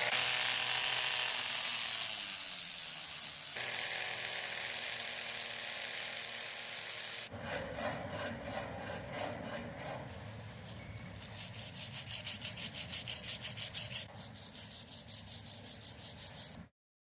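Restoration tool work: a small power tool runs steadily for about seven seconds and slowly fades, then rapid rubbing strokes by hand, several a second, like sanding or filing. The strokes stop abruptly near the end.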